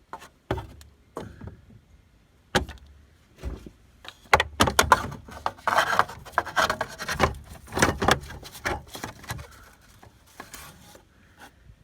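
Irregular clicks, knocks and rubbing of hands and tools working in a car's engine bay, busiest in the middle stretch.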